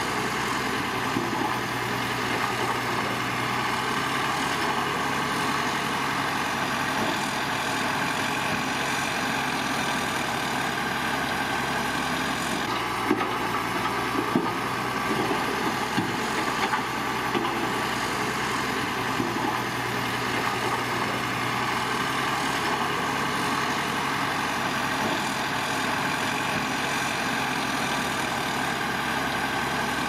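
Heavy diesel earth-moving machinery running steadily, with a few short knocks about halfway through.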